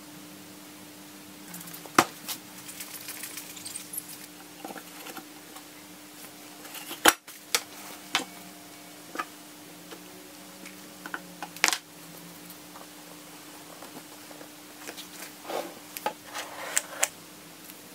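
Scattered knocks, taps and clicks of hard parts being handled on a workbench as a model dragster is set into an MDF display box and a panel is fitted onto it. The sharpest knocks come about 2, 7 and 12 seconds in, over a steady low hum.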